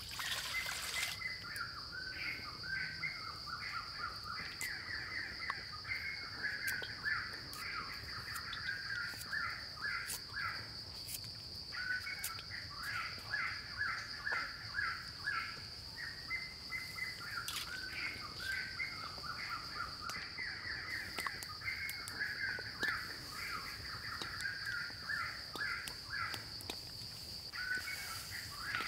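Forest ambience: birds calling in quick trains of short notes, over a steady high-pitched insect drone. For about the first second, water splashes as it is poured into a steel wok.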